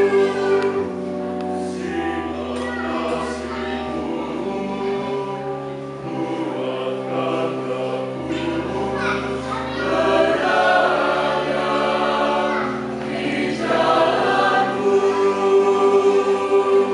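Mixed choir of women's and men's voices singing a hymn in Indonesian, in sustained chords that change every few seconds.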